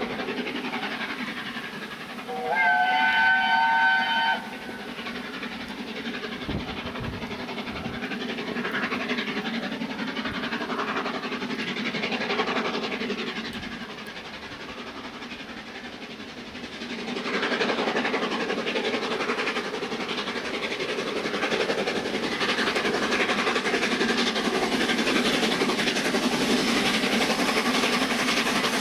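Steam locomotive 60163 Tornado, a Peppercorn A1 Pacific, sounds its whistle for a couple of seconds early on. The train then works up a bank, and its running grows louder past the halfway point as it comes closer.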